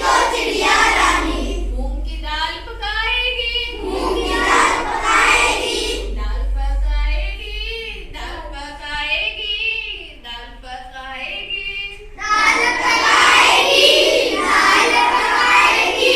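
Children singing a Hindi nursery rhyme together, growing louder about twelve seconds in.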